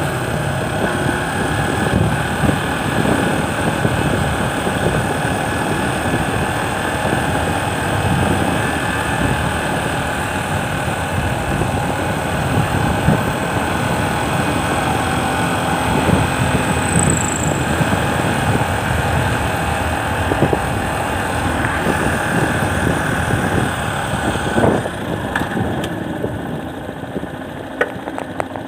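Motorcycle engine running steadily while riding uphill; it gets quieter in the last few seconds as the bike slows.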